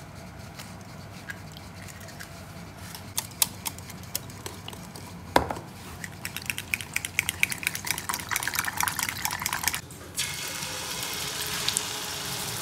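Eggs being beaten in a bowl: scattered clinks of kitchen utensils, then a utensil clicking rapidly against the bowl for a few seconds. About ten seconds in, a steady sizzle starts as the egg mixture fries in a hot pan.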